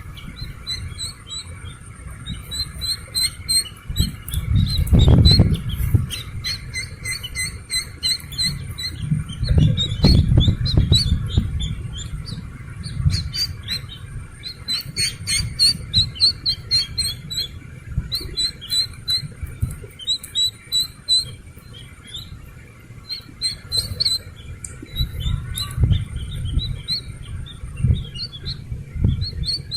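Slaty-legged crake chicks peeping: runs of rapid, short, high chirps throughout. Low rumbling noise sits underneath, loudest about five and ten seconds in.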